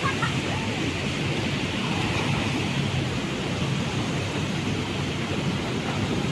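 River water rushing steadily over stones.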